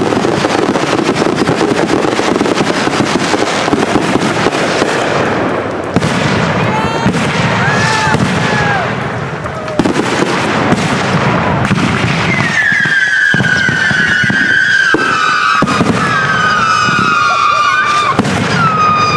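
Consumer fireworks going off in quick succession: dense crackling and popping, then several whistling tones that fall in pitch over a second or two each during the second half.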